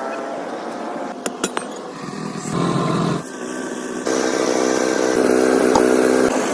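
A motor-driven power tool or engine running with a steady hum, in short segments that change pitch abruptly about two and a half, three and a quarter, and four seconds in.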